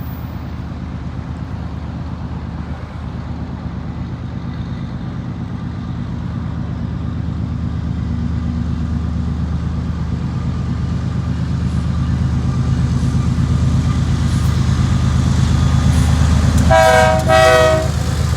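Approaching BNSF freight train led by GE ES44AC diesel locomotive #5866: a low, throbbing engine rumble that grows steadily louder, then two short horn blasts near the end.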